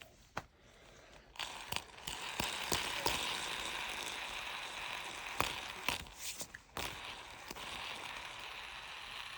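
Fidget spinner spinning: a steady whirring hiss that sets in after about a second and slowly fades, with a few sharp clicks from handling.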